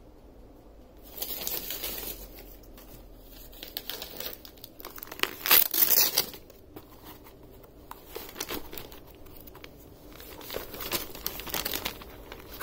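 Gift wrapping paper being torn and crinkled off a cardboard box, in irregular bursts that start about a second in and are loudest a little past halfway.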